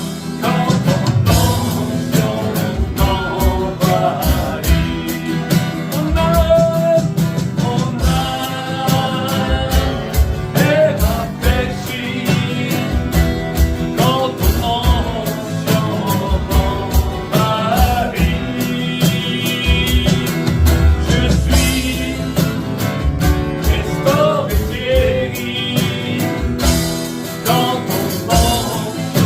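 A Christian worship song: a band with a steady drum beat, with a sung melody gliding above it.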